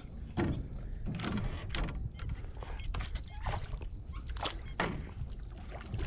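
A hooked giant snakehead thrashing at the surface beside a small boat: irregular sharp splashes and knocks, about eight in six seconds, over a steady low rumble.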